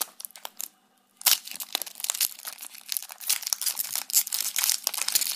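Foil wrapper of a Pokémon trading card booster pack being torn open and crinkled in the hands, a dense run of crackles with a short pause about a second in.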